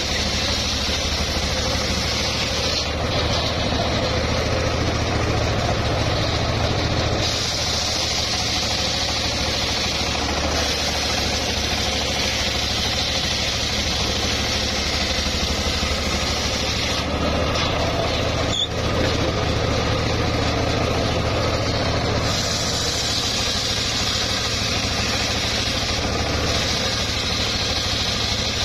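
Homemade table circular saw ripping a log lengthwise: a steady hiss of the blade cutting through the wood over the low hum of its drive, swelling and easing as the log is pushed through. A single sharp knock about two-thirds of the way in.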